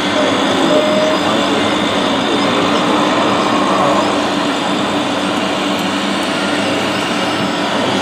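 Radio-controlled scale model trucks driving: a steady, dense mechanical running noise with a faint constant hum.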